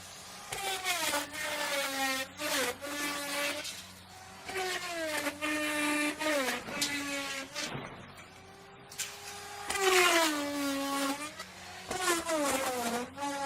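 Electric wood router running and cutting wood in repeated passes. Its motor whine drops in pitch each time the bit bites in, with a rasp of cutting, and rises again as the bit comes free, notably in a short pause about eight seconds in.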